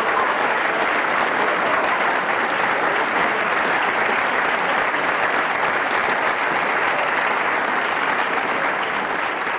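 Steady applause, many hands clapping together.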